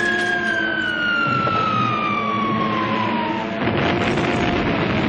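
An air-raid siren winding down in one long falling wail that dies away about three and a half seconds in, as a loud low rumbling noise sets in.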